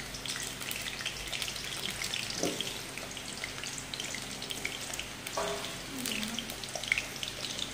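Halved potatoes frying in hot oil in a kadai: a steady sizzle dotted with small crackling pops.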